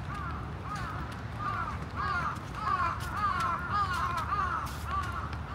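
Several birds calling at once, short arched calls in quick succession that crowd together in the middle and thin out near the end.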